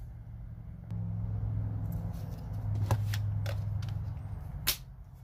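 A low steady rumble starts about a second in and fades after about four seconds. Over it come a few sharp plastic clicks as an M12 battery and tool are handled on the bench, the loudest near the end.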